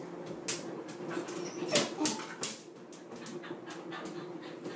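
Dog whimpering in a few short whines, with several sharp clicks and scrapes around two seconds in as its claws work at the bathtub rim.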